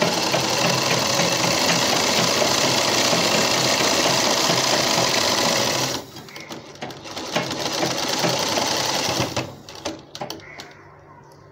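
Sewing machine running steadily for about six seconds, pausing briefly, then running again in a shorter, quieter stretch before stopping near the end. It is stitching a line of top-stitching along the edge of a cloth baby diaper, with a stop where the fabric is turned at the corner.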